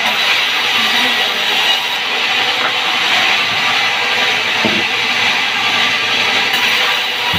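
Sawmill band saw running and ripping a timber slab, a loud steady hiss and whine of the blade through the wood, with a brief low knock near the middle.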